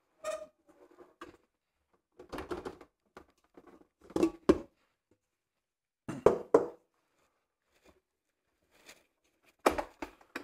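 Handling noise from a stand mixer: a stainless steel mixing bowl being twisted off its base and lifted away, with a string of separate knocks and clacks, the first with a short metallic ring.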